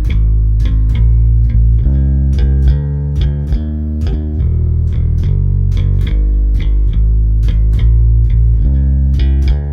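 Warwick Vampyre SN-5 five-string electric bass, played through a Neural DSP Quad Cortex amp modeler: a steady run of plucked notes, several a second, each with a sharp, bright attack over a full low tone.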